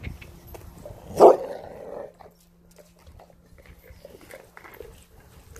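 A dog gives one short, loud warning bark with a growling tail about a second in, a food-guarding correction over a deer leg during group feeding. Quieter crunching and gnawing on the deer bone follows.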